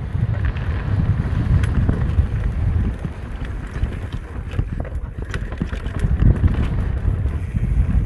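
Wind buffeting the microphone over the rumble and rattle of an electric mountain bike riding rough downhill trail, with scattered sharp clicks and knocks from the bike.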